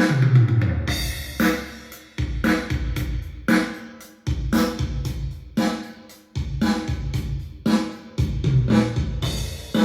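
Roland V-Drums electronic drum kit playing back a prerecorded demo drum pattern: kick, snare, hi-hat and cymbal in a steady repeating groove.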